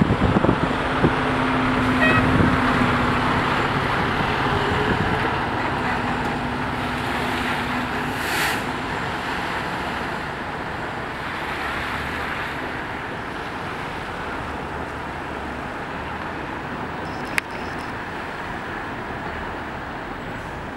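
Cars driving through a street flooded by tidal salt water: engine hum and tyres swishing through the shallow water, gradually fading as the traffic moves off, with a brief hiss about eight seconds in.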